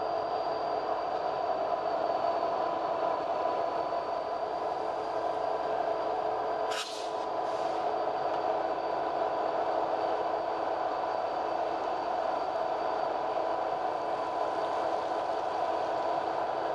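Passenger train running on the rails, a steady rolling rumble with a few steady whining tones from wheels and rails. A short hiss cuts in about seven seconds in.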